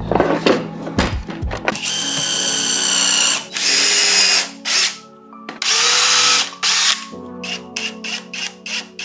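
Small electric motor running in three bursts of about a second each, starting about two seconds in, after some clattering knocks, over background music with a steady beat.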